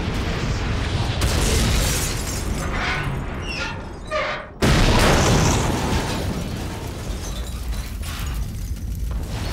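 Car explosion: a blast rumbling and crackling, then a high whine sliding downward, a brief drop, and another loud blast about four and a half seconds in that rumbles on.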